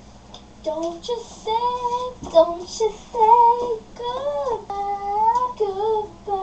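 Young girls singing a song without accompaniment, in long held notes that glide from pitch to pitch.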